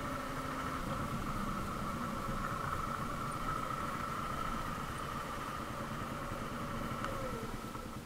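Motorcycle engine running steadily at low revs.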